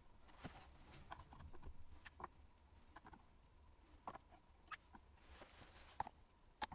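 Faint, scattered light taps and clicks of a plywood jig top and a steel carpenter's square being handled, about one small knock every second.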